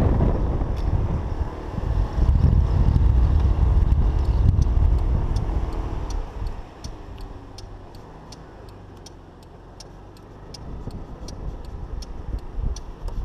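Dafra Citycom scooter under way, with a low rumble of engine and wind on the chest-mounted microphone that is loud for the first half and drops as the scooter slows. From about four seconds in, the turn-signal indicator ticks steadily, about three clicks a second.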